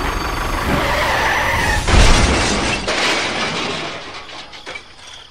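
Crash of a toy tractor ramming a toy steam locomotive. A skidding scrape with a wavering squeal leads into one heavy smash about two seconds in, then a rattling tail that fades away.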